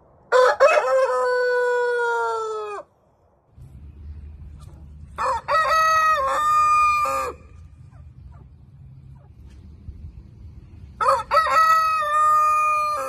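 Roosters crowing: three long crows of about two seconds each, the first lower-pitched than the other two, which match each other. A low steady rumble runs under the second and third crows.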